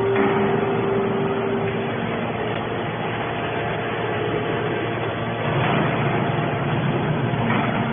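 Horizontal hydraulic scrap-metal baler running: a steady machine drone with a strong hum that stops about two seconds in, and a slight swell in the noise past the middle.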